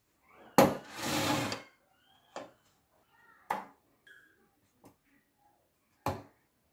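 A metal loaf pan knocks down onto a bamboo cutting board and scrapes across the wood for about a second. A few lighter taps follow as kiwi slices are laid into the pan.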